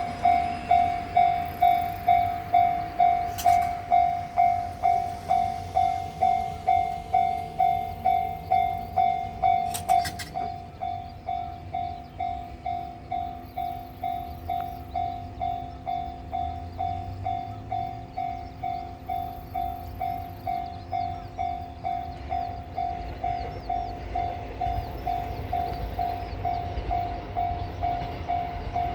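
Japanese railway level-crossing warning bell ringing in steady pulses, about two a second. About ten seconds in the bell becomes quieter, and the low rumble of a train passing over the crossing builds underneath it.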